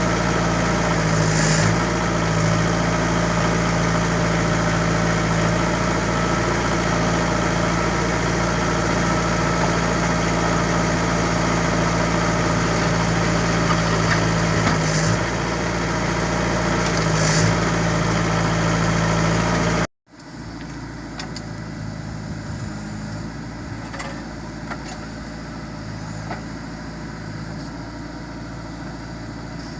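Heavy construction machine's engine running steadily at idle. About two-thirds of the way through, an abrupt cut switches to a quieter, more distant engine hum with occasional light clicks.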